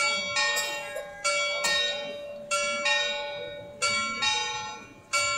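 Bells of the early-16th-century clock on the Frauenkirche's front striking in pairs of strokes, a pair about every 1.3 seconds, each stroke ringing on and fading as the next one comes.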